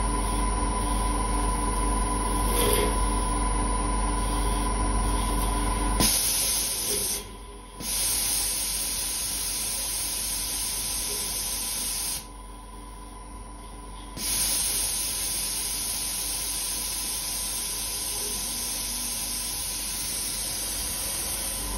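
CNC mill spindle spinning nylon stock in a scroll chuck as a vertical lathe while a gang-mounted turning tool profiles it, with a steady machine whine. About six seconds in, a loud steady hiss starts. It drops out briefly a second later, and again for about two seconds in the middle.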